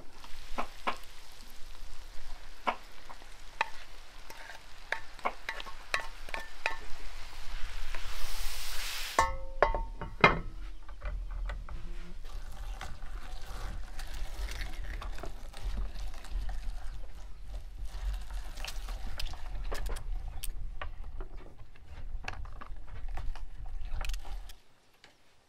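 Pumpkin being prepared for frying: a steady sizzling hiss with scattered clinks of spoons and dishes for the first nine seconds. It cuts suddenly to a clatter of metal pans and dishes, then the light clicks of a knife slicing raw pumpkin.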